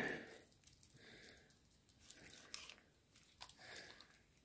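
Near silence, with a few faint rustles and light clicks.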